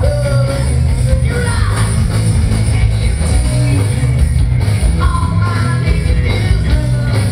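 Live hard rock band playing: male lead vocals over distorted electric guitar, electric bass and a drum kit, with heavy, dense low end from the PA.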